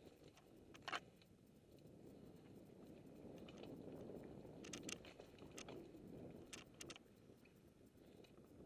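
Faint rolling of mountain bike tyres over a dirt and gravel trail, a soft rushing that swells mid-way, with scattered sharp clicks and rattles from the bike and loose stones, one about a second in and several more between five and seven seconds in.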